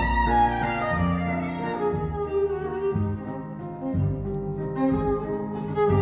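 Recorded music with bowed strings over shifting low bass notes, played back through a hi-fi loudspeaker system in the room. It dips slightly quieter in the middle.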